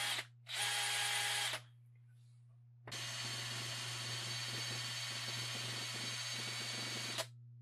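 Power drill spinning a 3D-printed fluid coupler: two short bursts of its motor whine near the start, then a steady run of about four seconds that stops abruptly.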